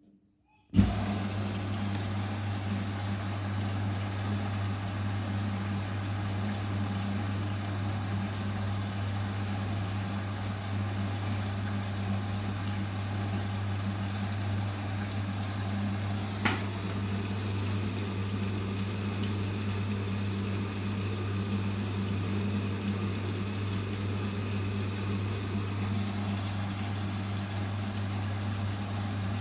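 Vestel CMI 97302 washing machine running steadily on a 70 °C cotton wash: a low electrical hum with a wash of water noise, starting suddenly about a second in. A single sharp click about 16 seconds in.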